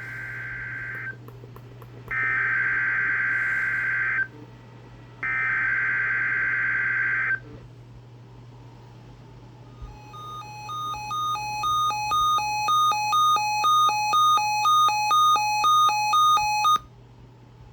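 Emergency Alert System SAME header: the end of one screeching data-tone burst, then two more bursts of about two seconds each. A few seconds later a pulsing alert tone starts, about two pulses a second, alternating between two pitches and growing louder before it cuts off suddenly, signalling the severe thunderstorm watch that follows.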